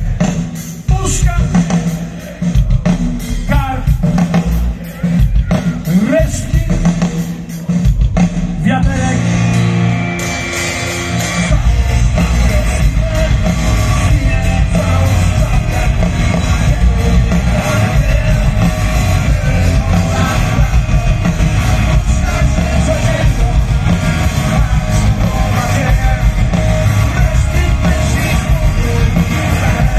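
Live punk rock band playing loud through a large open-air PA, heard from within the crowd: stop-start drum and guitar hits for the first several seconds, then the full band comes in at about eleven seconds and plays on steadily.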